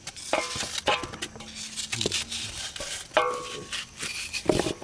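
Metal pots, bowls and utensils clinking and scraping, with a few clear ringing clinks among many lighter clicks.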